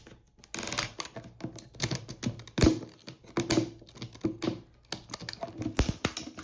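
Hands handling and opening toy packaging: a run of irregular clicks, taps and crackles.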